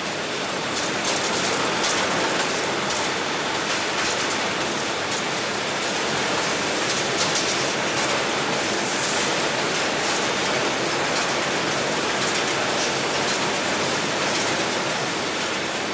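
Fish-processing machinery running in a cannery: a steady mechanical din with frequent irregular clicks and rattles, and a brief hiss about nine seconds in.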